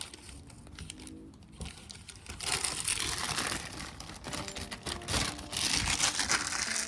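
Plastic packaging crinkling and rustling as small new suspension parts are handled; quieter at first, busier from about two seconds in.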